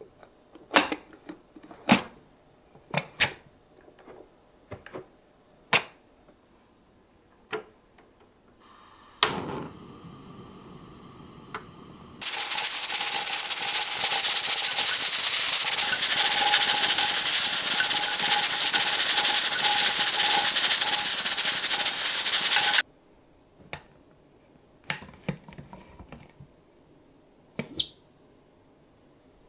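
Metal clicks and clacks as a pressure cooker's lid is closed and locked. Then a loud steady hiss with a thin whistle: steam venting from the cooker's weighted valve, the sign that it has come up to pressure. The hiss lasts about ten seconds and stops abruptly, followed by a few more clicks as the lid is handled.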